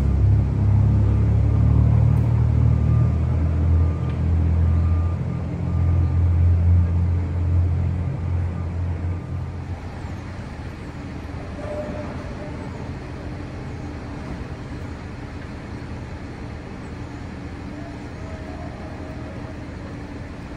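A motor vehicle engine running close by, a loud low rumble that fades about ten seconds in, leaving steady, quieter street traffic noise.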